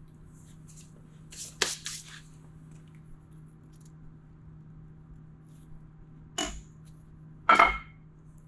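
Metal hand tools and parts clinking and knocking during engine work: a quick cluster of clicks about a second and a half in, then two louder metallic clanks near the end, the last one ringing briefly. A steady low hum runs underneath.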